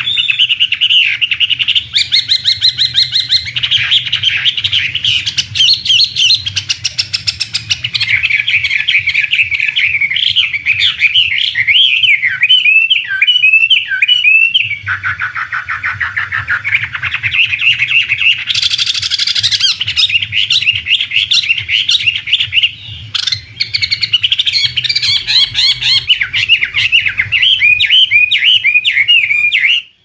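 Chinese hwamei (Garrulax canorus) singing a continuous, varied song of fast slurred whistles and trills with hardly a pause.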